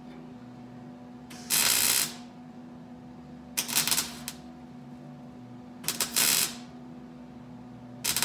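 Wire-feed welder laying short stitch welds on the new sheet-metal trunk pan: four half-second spells of crackling arc, about two seconds apart.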